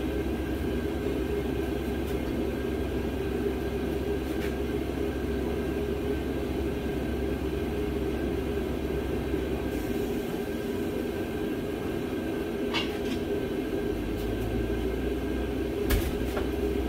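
A steady low machine drone with a faint steady whine, its deepest rumble dropping away about ten seconds in and returning near the end. A few light clicks sound over it near the end.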